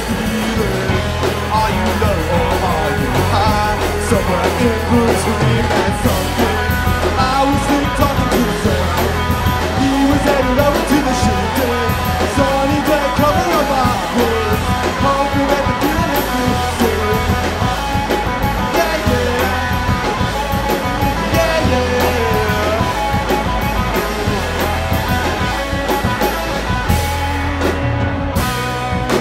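Rock band playing a song: electric guitars, drum kit with cymbals, and a male voice singing.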